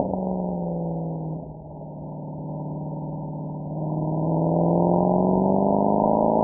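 Mercedes-AMG SL63's V8 exhaust note sinking in pitch as the car coasts off the throttle, then rising steadily as it accelerates again, growing louder from about four seconds in.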